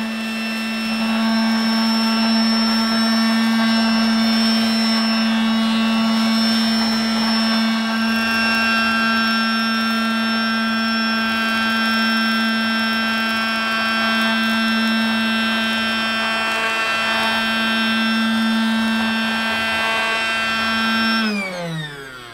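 Casdon toy Dyson V8 cordless vacuum's small battery-powered motor running with a steady high whine while it sucks up spilled foam pretend-dirt balls. Near the end the motor is switched off and winds down, its pitch falling.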